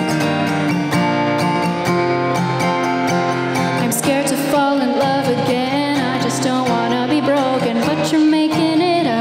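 A woman singing a song while strumming chords on an acoustic guitar. The guitar plays alone at first, and her voice comes in about four seconds in.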